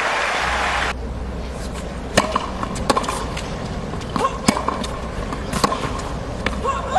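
Crowd noise that cuts off abruptly about a second in, then the sharp knocks of a tennis ball struck by rackets and bouncing on a hard court during a point, one to two seconds apart.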